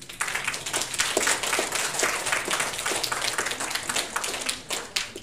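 Audience applauding: many hands clapping together, starting abruptly and dying away near the end.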